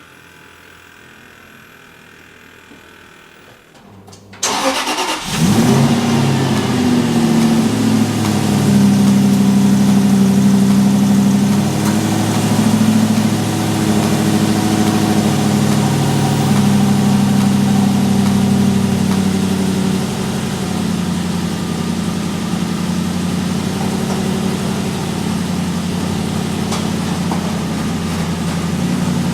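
Aston Martin V8 Vantage's 4.3-litre V8 starting about four seconds in: it catches suddenly, the revs flare briefly, then it settles into a steady idle that eases slightly lower later on.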